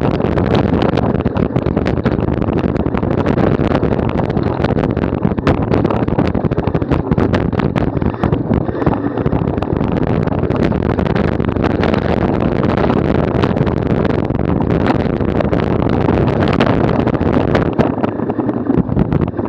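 Wind rushing over the microphone while riding a mountain bike over rough off-road ground, with frequent small rattles and knocks from the bike.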